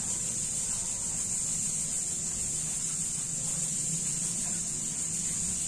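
Steady high-pitched hiss over a low hum, unchanging, with no distinct events.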